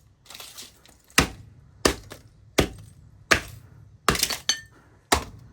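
Repeated hammer blows on a burnt, microwaved electronic device, about seven sharp strikes a little under a second apart, with glass and plastic cracking. One strike near the fourth second leaves a short metallic ring.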